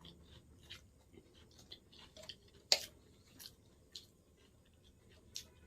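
Close-miked mouth sounds of someone eating: irregular soft, wet clicks and smacks of chewing, with one sharper click a little under halfway through.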